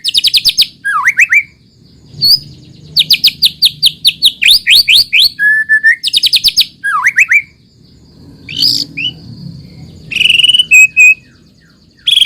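White-rumped shama (murai batu) singing. It gives loud bursts of rapid, repeated sweeping notes, three times, separated by short rising whistles. Near the end come a few short, steady whistled notes.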